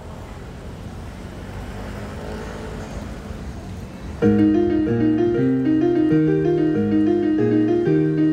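Casio electronic keyboard in a piano voice starting a song about four seconds in, playing a steady repeating pattern of chord notes over changing bass notes. Before it starts there is only quiet background noise.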